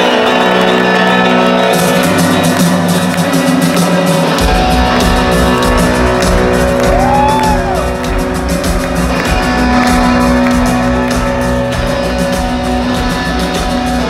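Rock band playing loudly on a stadium sound system, heard from within the crowd, with guitar and sustained notes; heavy drums and bass come in about four seconds in.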